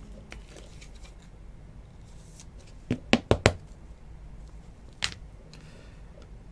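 Trading cards and clear plastic card holders being handled on a table: a quick cluster of four sharp clicks about halfway through, one more click a couple of seconds later, and faint handling noise between them.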